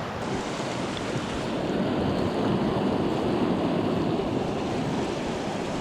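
Creek water rushing steadily, swelling louder through the middle.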